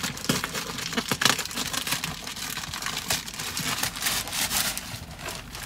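Plastic mailer bags crinkling and rustling as they are pulled open and a boxed item is drawn out of them, in irregular crackles with a sharper one about a second in.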